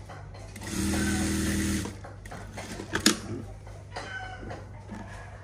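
Industrial lockstitch sewing machine running in one burst of about a second, then a sharp click about three seconds in, over a steady low hum.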